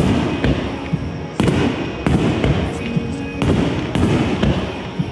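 Aerial firework shells bursting overhead: about five sharp bangs, a second or so apart, each dying away over about half a second.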